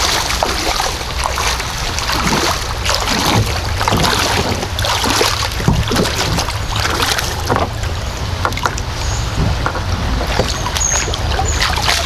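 Splashing of feet wading through shallow creek rapids, in irregular steps, while a kayak is towed upstream over the riffle at low tide; water runs and ripples over the rocks throughout.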